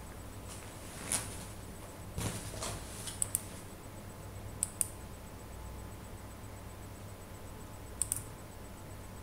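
Computer mouse clicking a few times, mostly in quick pairs, with a softer knock or two in between, over a low steady hum.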